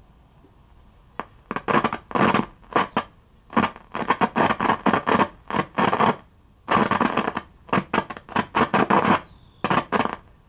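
Bursts of static from a 1966 Sylvania tube colour TV's speaker, cutting in and out irregularly as its controls are worked, with no station coming in. A faint, steady, high-pitched whine runs underneath.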